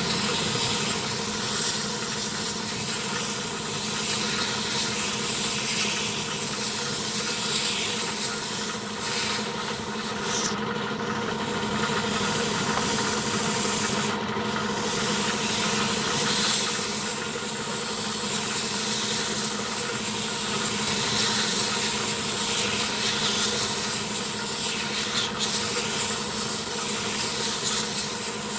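Compressed air hissing steadily as it is blown through a truck's air filter element, over the steady hum of a running motor, most likely the air compressor. The air stream drops out briefly twice, about a third and halfway through.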